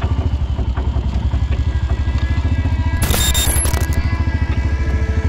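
Engine running with an even, rapid low pulse. A brief high-pitched squeal and hiss cuts in about three seconds in and lasts about a second.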